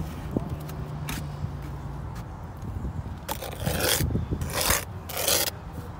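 Steel brick trowel scraping wet mortar off fresh brickwork: a short scrape about a second in, then three longer rasping strokes in the second half.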